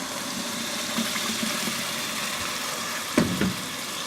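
Grated onion with spices frying in oil in a pot, a steady sizzle. One sharp knock about three seconds in.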